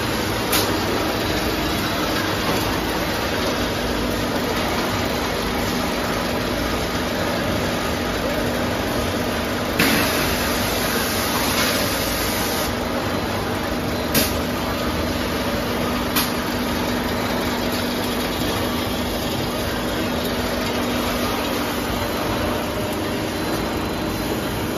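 Injection moulding machines running on a factory floor: a steady mechanical hum with a few sharp clacks, about four over the stretch.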